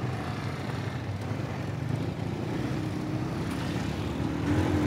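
Motorcycle engine running steadily while riding through street traffic, with road and wind noise and other vehicle engines close by. Near the end a nearby engine rises faintly in pitch.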